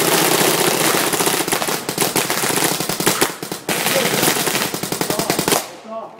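Paintball markers firing in a continuous rapid-fire barrage, stopping abruptly about five and a half seconds in.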